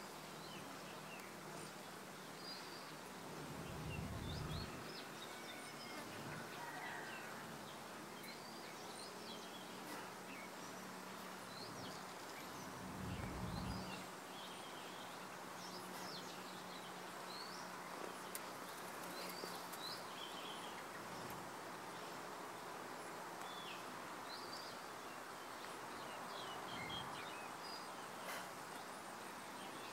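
Outdoor garden ambience: small birds chirping briefly here and there over a steady background hiss, with two short low rumbles, about four and thirteen seconds in.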